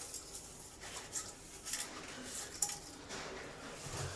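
Faint handling noise from working on heating pipework and push-fit fittings: light rustles and scattered small clicks, with a few sharper taps.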